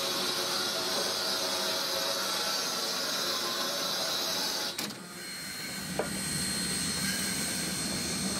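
Baldwin-built S160 2-8-0 steam locomotive moving slowly, with a steady hiss of escaping steam that cuts off abruptly about halfway through. After that it gives way to a steady hum with a thin high whine, and a brief falling squeal a second later.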